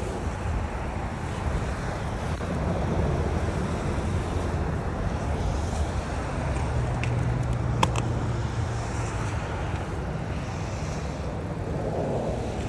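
Low, steady rumble of road traffic and motor-vehicle engines, with a sharp click about eight seconds in.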